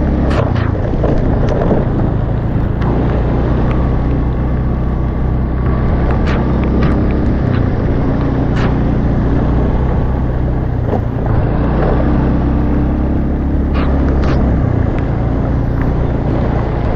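An engine running steadily at an even speed, with scattered light knocks and rattles over it.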